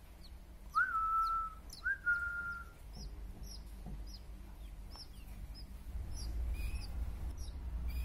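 Many short, high-pitched chirps from small birds, with two loud, steady whistled notes about a second apart near the start, each rising quickly and then held.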